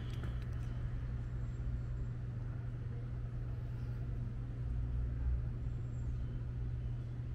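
Steady low hum and rumble of a motor vehicle's engine running nearby, with a couple of faint clicks at the start.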